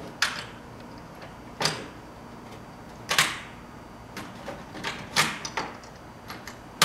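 Metal F-channel knocking and clinking against the rail clamp's hanging bolts as it is pushed up over them: about half a dozen sharp knocks at irregular intervals, the loudest near the end.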